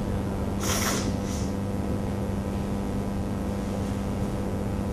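Steady electrical hum with a constant room-noise bed, and a brief soft hiss about half a second in.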